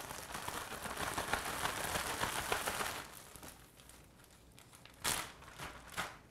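A Ziploc plastic bag holding a chicken drumstick and seasoned flour is shaken hard for about three seconds, giving a dense crinkling rustle. It then turns quieter, with a couple of short sharp crinkles as the bag is handled and opened near the end.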